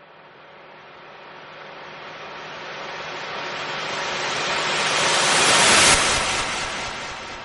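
A vehicle passing by: a rushing noise that swells steadily for about six seconds, peaks sharply near the end, then fades away.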